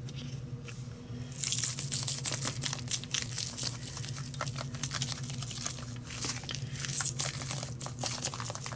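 Spice shaker being shaken over a raw pork shoulder: seasoning rattles in the shaker and patters onto the meat as a fast, irregular run of small ticks and crackles, starting about a second and a half in.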